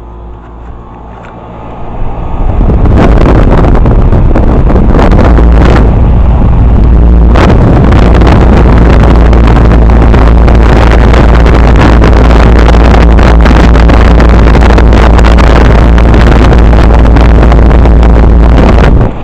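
Discharge air from the running condenser fan of a Carrier 38BRC outdoor unit blowing across the microphone: a loud rushing, buffeting noise that sets in about two to three seconds in and cuts off sharply near the end.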